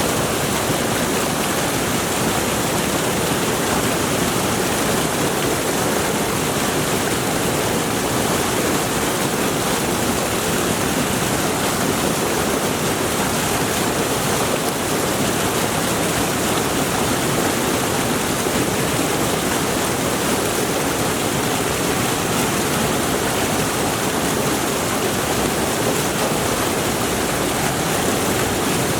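Mountain stream rushing steadily over rocks, a dense even roar of flowing water.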